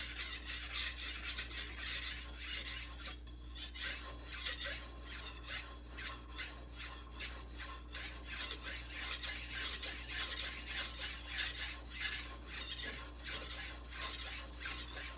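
BD1N steel knife edge being stroked back and forth on a wet Juuma Cobalt Blue 800-grit waterstone: a gritty scraping rasp, about two strokes a second, with a short pause about three seconds in. The second side of the edge is being ground to raise a burr.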